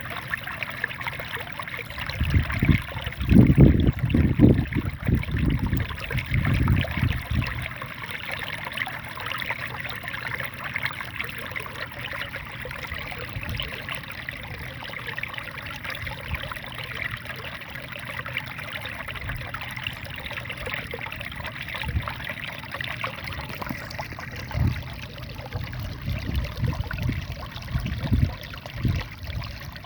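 Small waterfall in a rice field, water splashing and trickling in a steady rush. Low rumbling bursts come over it a couple of seconds in and again near the end.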